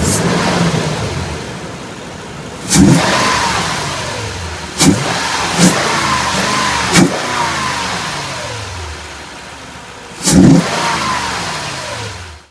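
2010 Toyota Tundra engine breathing through a Volant cold air intake, being blipped on the throttle about five times. Each blip sends the revs up sharply, and they slide back down toward idle. The sound cuts off suddenly near the end.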